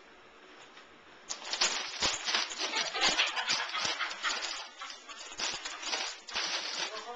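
A dog rummaging in a bag of chips, the bag crinkling and rustling in dense irregular crackles that start about a second in.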